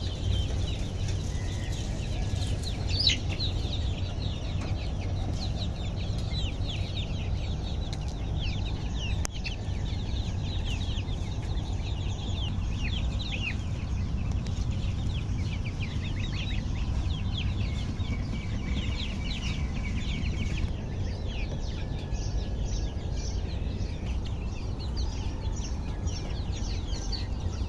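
A large flock of young chickens peeping continuously: many short, falling peeps overlapping one another, over a steady low rumble.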